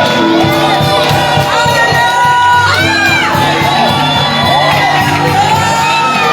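Church congregation shouting, whooping and singing out over loud, steady music.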